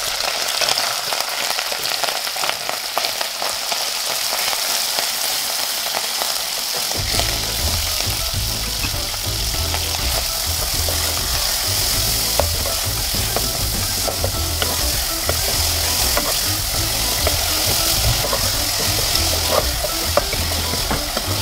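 Minced beef sizzling as it fries in hot oil in a metal pot, stirred and scraped with a wooden spoon, with small spoon clicks in the steady hiss. The oil was hot when the meat went in, so it is browning rather than stewing.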